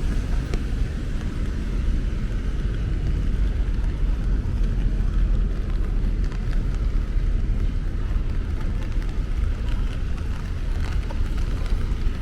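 Steady rain falling, with a continuous low rumble of city traffic underneath.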